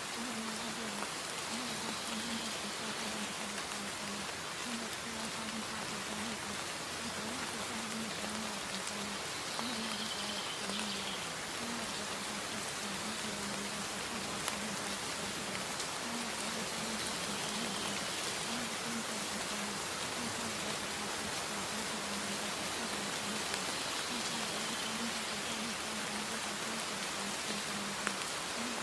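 Steady rain, an even hiss of rain falling on a surface, with a faint low wavering hum beneath it.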